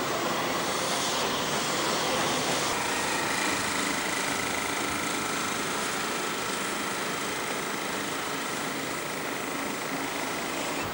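Passenger train hauled by steam locomotive 3801, a C38-class Pacific, rolling past: a steady rumble and hiss from the locomotive and carriages, with a faint steady whine.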